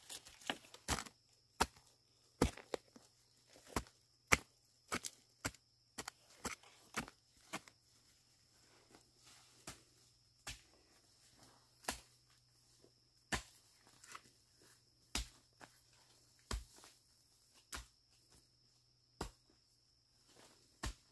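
A digging tool chopping repeatedly into forest soil and roots to dig out a bamboo shoot. The strikes come quickly at first, then slow to about one every second and a half.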